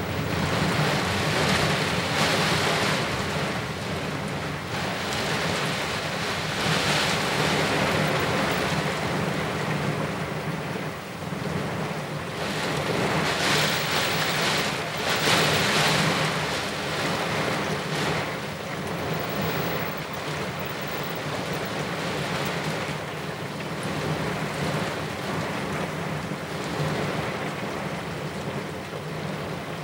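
Heavy thunderstorm rain and wind, a steady rushing that swells in strong gusts every few seconds and eases between them.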